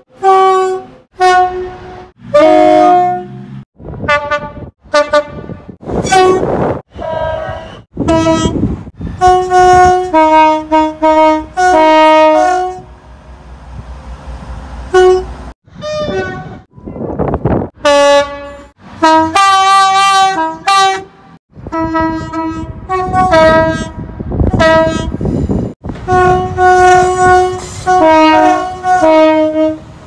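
A rapid string of British train horn blasts cut together from many clips. Mostly two-note horns sounding short high-low and low-high pairs, some notes held for a second or more, with stretches of rushing noise between some of the blasts.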